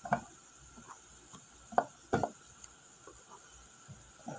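Knife cutting vegetables on a cutting board: a few sharp knocks of the blade against the board, irregularly spaced, two of them close together near the middle.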